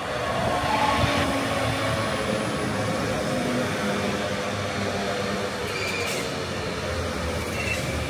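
Class 331 electric multiple unit passing close by along a station platform: wheels running on the rails with a continuous rumble and steady tones, louder after the first second. Faint high wheel squeals come twice in the second half.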